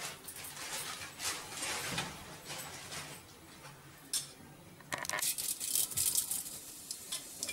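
Faint small clinks, then from about five seconds in cumin and mustard seeds are sprinkled into hot oil in an aluminium pot and crackle briefly.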